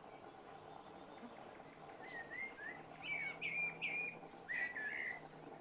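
Eurasian blackbird singing its unhurried evening song. After a short pause, one phrase of fluty whistled notes begins about two seconds in and ends in high, thin twittering.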